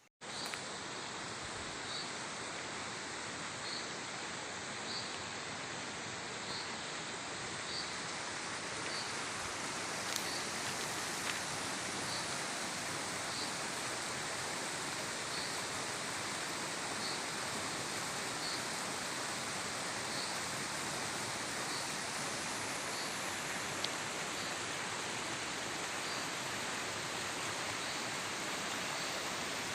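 Steady rush of flowing river water, cutting in abruptly at the start, with a faint high chirp from a small bird or insect repeating about every second and a half.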